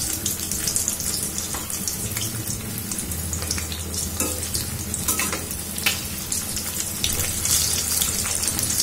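Fish pieces shallow-frying in hot mustard oil in a kadhai: a steady sizzle with scattered sharp pops and crackles, the fish near the end of cooking, browned on both sides.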